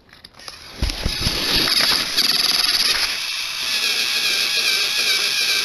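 Motorized toy train engines running with a steady whir of small electric motors and gears, with a high whine throughout, as the two engines push nose to nose against each other. A few knocks about a second in.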